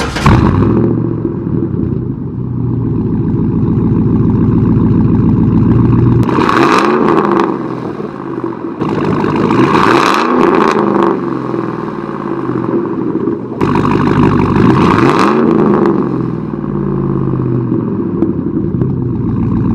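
Straight-piped GMC Sierra pickup exhaust, no muffler but catalytic converters kept, idling warm and pretty loud. It is revved three times, about 6, 10 and 14 seconds in, each rev rising and falling back to idle.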